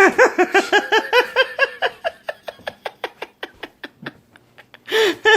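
A person laughing hard: a fast run of 'ha-ha' pulses that fades into breathy wheezes over about three seconds, then more laughter near the end.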